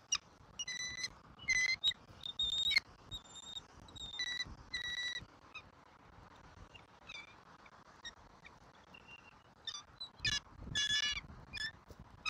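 Bald eagles at the nest giving high-pitched chirping calls in short bursts: several in the first five seconds, then a quick run of them again around ten to eleven seconds in.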